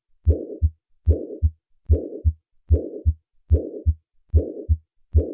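Heart sounds of acute mitral regurgitation recorded at the cardiac apex. About seven steady beats, each a low first and second heart sound with a rushing murmur between them that starts with the first sound and fades before the second.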